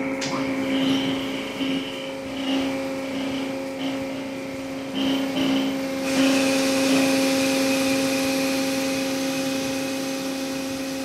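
Hydraulic test bench running a remanufactured excavator final drive motor, its hub spinning. The sound is a steady machine whine over a hum. About six seconds in, a louder hiss sets in and holds.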